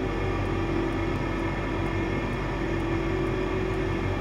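Steady machine hum with a constant low tone, unchanging throughout.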